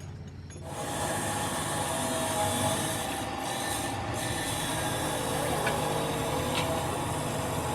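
Steady mechanical noise, like a workshop machine running, starting abruptly about half a second in.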